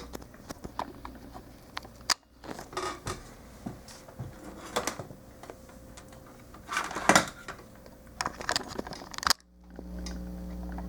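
Crinkling and scattered small clicks of plastic model-kit parts and packaging being handled. Near the end the sound cuts out briefly, and then a steady low hum begins.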